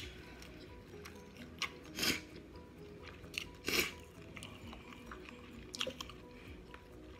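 Close-up eating sounds: chewing and wet lip smacks as spicy seafood-boil sauce is sucked off fingers, a few separate smacks with the loudest about two seconds in and just before four seconds, and a quick cluster near the end.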